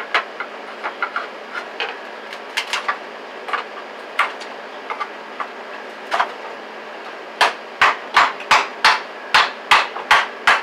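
Hammer blows on a wooden bed frame, knocking its joints apart. Scattered single knocks at first, then a fast run of about nine hard strikes, about three a second, in the last three seconds.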